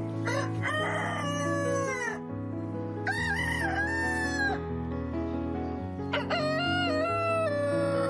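Rooster crowing three times, each crow a long call that drops in pitch at its tail, over steady background music.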